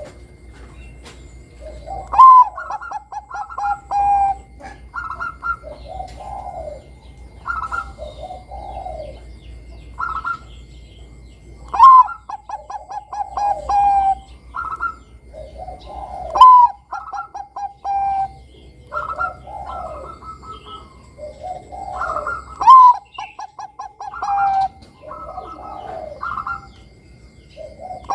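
Bangkok-type zebra dove (perkutut) singing: each phrase opens with a bright high note, runs into a quick stuttering trill and ends in drawn-out cooing. The phrase comes about five times, with softer single coos between.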